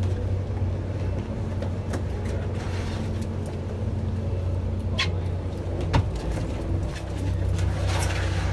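Charter boat's engine idling with a steady low hum, with a few sharp knocks and clicks over it.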